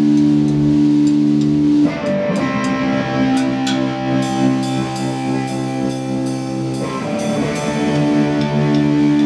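Live rock jam: an electric guitar holds a steady, sustained chord, and about two seconds in a drum kit joins with rapid drum and cymbal hits. Near the end the drums drop out and the held chord returns.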